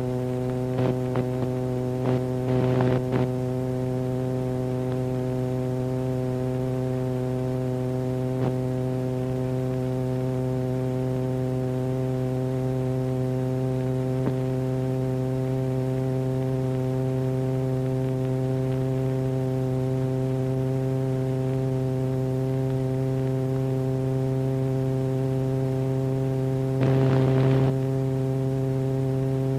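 A steady, low, buzzy electronic tone from a sine-wave oscillator, rich in overtones, holding its pitch across these seconds as part of a very slow rising glide. Short bursts of noise break in about two to three seconds in and again near the end.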